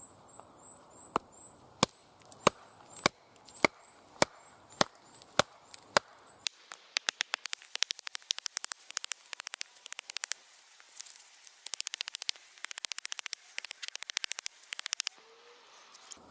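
Cold Steel SRK knife being batoned into a log: about nine sharp wooden knocks, roughly one every 0.6 s, as a baton strikes the blade's spine. After that comes a long run of rapid, lighter ticking that stops shortly before the end.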